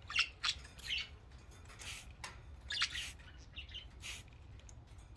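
Pet budgerigars chirping: a string of short, sharp chirps and squawks, irregularly spaced.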